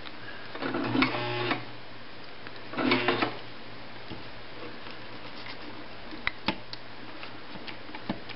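Pfaff 139 sewing machine stitching a darn into a sock, run in two short bursts, the first about a second long and the second about half a second. A few faint clicks follow near the end.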